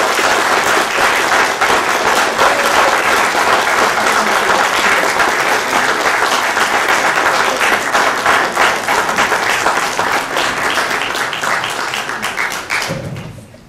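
Audience applauding, a dense steady clapping that holds for over ten seconds and then dies away near the end.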